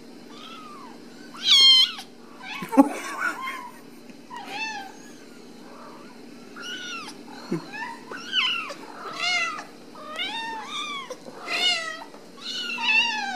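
Ragdoll kittens mewing over and over in short, high, arched cries, coming more often in the second half.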